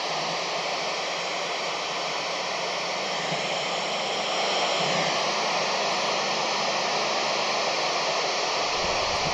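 Steady hiss of FM static from a Kenwood handheld 2-meter amateur radio with its squelch open, tuned to the ISS downlink while no voice is coming through. The hiss gets a little louder about halfway through.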